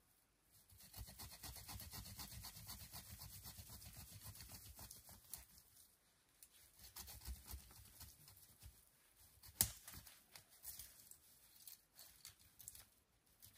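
Faint rustling and scratching of dry twigs and forest-floor debris being gathered by hand, likely kindling for a campfire. There are two spells of dense crackly rustle, then a single sharp snap of a stick near the middle, and a few scattered small cracks after it.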